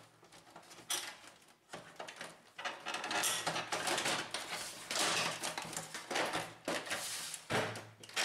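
Plastic side cover of a laser printer being fitted onto the printer's body: plastic scraping and rattling against plastic, with several sharp clicks and knocks as it is pressed into place.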